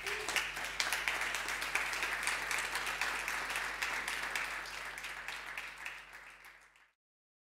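Audience applauding, a dense patter of many hands clapping that tapers off and then cuts to silence near the end.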